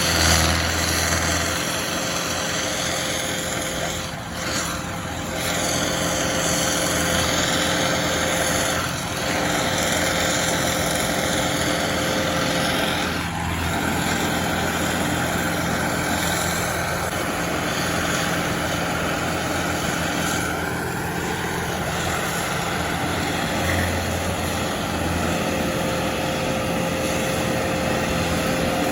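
Engine of heavy landscaping machinery running steadily, a loud continuous engine noise with a constant hum.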